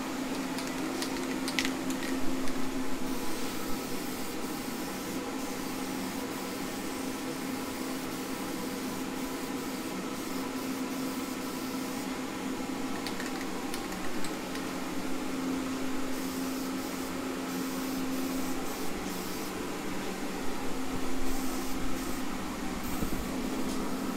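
Aerosol spray can of filler primer hissing in on-and-off bursts as it is sprayed onto a steel engine oil pan, over a steady low hum. There are a few sharp clicks about two seconds in.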